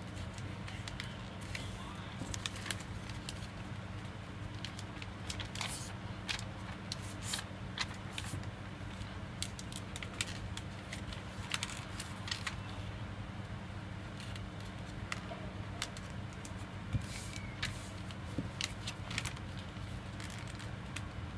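A sheet of paper being folded by hand into a paper airplane: irregular crinkles and short crisp clicks as the folds are pressed and creased, over a steady low hum.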